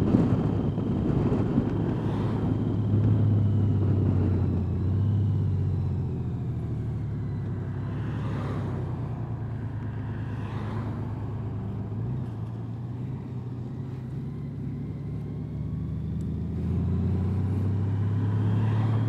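Honda Gold Wing's flat-six engine running at road speed, with tyre noise on wet pavement. The engine note drops back about five seconds in and picks up again near the end, and an oncoming car swishes past near the middle.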